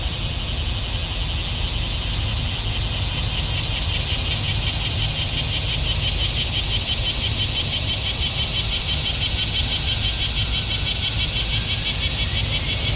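Airbus A320-200 jet engines running steadily at low power, heard from across the airfield as a low rumble, under a loud high buzzing that pulses rapidly and evenly.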